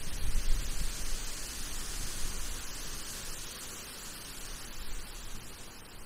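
Wind outdoors: a steady rushing hiss with an uneven, gusty low rumble from wind on the microphone, strongest in the first second or so, then easing.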